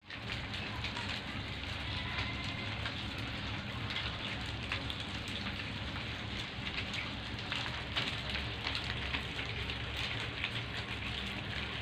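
Hundreds of land hermit crabs crawling over one another in a heap, their shells clicking and scraping together in a dense, steady crackle like rain.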